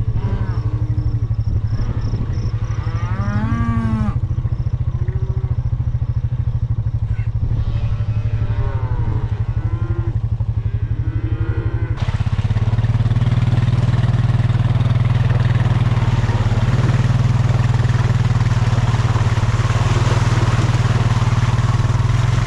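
Cattle mooing, several long calls one after another, over a vehicle engine running steadily. About halfway through the cows fall quiet. The engine grows louder and a loud rushing noise joins it.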